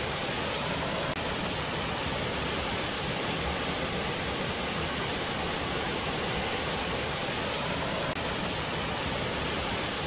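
Waterfall rushing steadily, water pouring down a rock face and over boulders into a pool: an even, unbroken roar.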